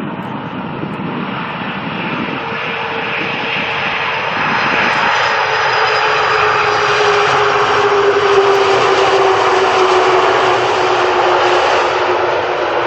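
Jet airliner on landing approach, its engine noise growing steadily louder as it comes overhead, with an engine whine that slowly falls in pitch through the second half.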